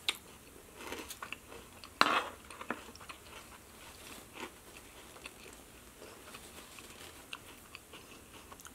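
Close-miked crunchy chewing of a mouthful of crisp lettuce salad, with one loud crunch about two seconds in and smaller crunches after.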